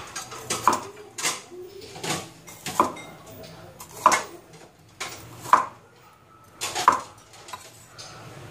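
Cleaver chopping bitter gourd on a wooden chopping board: about eight separate knocks, unevenly spaced roughly a second apart, some with a short metallic ring.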